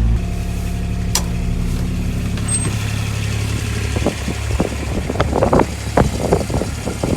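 A vehicle engine idling steadily. From about four seconds in, a string of short, sharp sounds comes in over it and grows busier toward the end.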